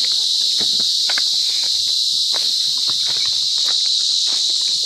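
A loud, steady, high-pitched drone of insects, with footsteps crunching and clicking on loose stones beneath it.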